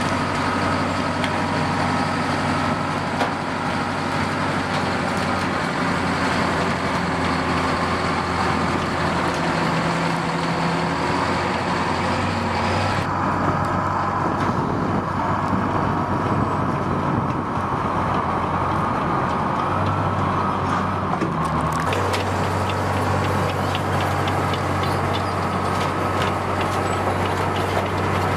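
Engine of a tracked self-propelled howitzer running with a steady low drone. Light clicks and clanks come from its tracks in the last several seconds.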